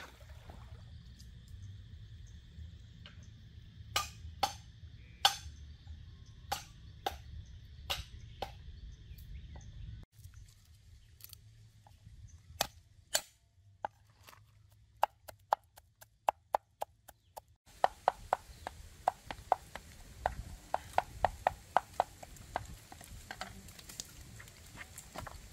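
A string of sharp knocks and taps, spaced apart at first, then coming in quick runs of several a second, over a steady low outdoor background.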